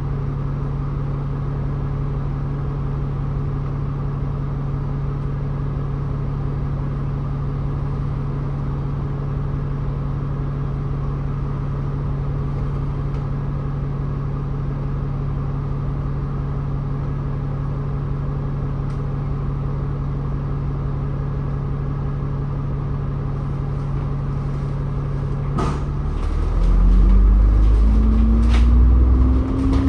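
Bus engine idling steadily, heard from inside the bus. About 26 seconds in there is a click, then the engine note rises and grows louder as the bus pulls away and accelerates.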